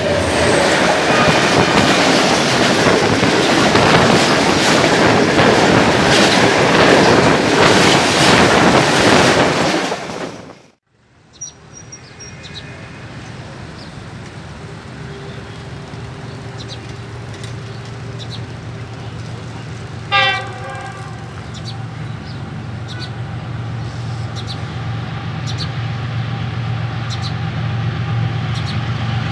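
Loud running rattle and rush of a train in motion, heard from aboard, with sharp rail clicks, for about ten seconds until it cuts off. Then an approaching diesel locomotive sounds one short horn blast about twenty seconds in, its low engine rumble slowly growing louder as it nears the crossing.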